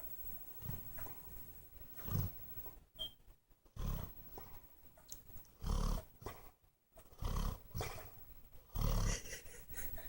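A dog snoring in its sleep: a run of deep, rasping snores, the strongest coming about every one and a half to two seconds from about two seconds in.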